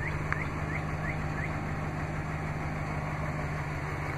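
A 2014 Ram 1500's 5.7-litre Hemi V8 idling steadily after a remote start.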